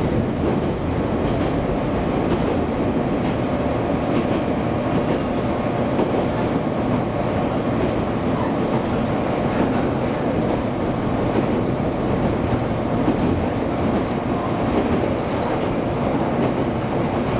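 Diesel railcar running steadily along the line: a continuous rumble of engine and wheels on rail, with a few faint clicks from the track.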